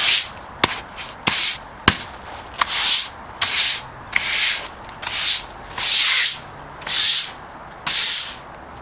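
Stiff-bristled yard broom scrubbing wet concrete paving slabs in back-and-forth strokes, about one a second, each a short hiss of bristles on rough stone. A couple of sharp knocks come in the first two seconds.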